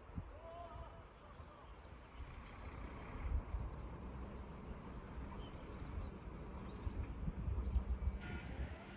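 Outdoor ambience: wind gusting over the microphone as an uneven low rumble, with faint high chirps now and then.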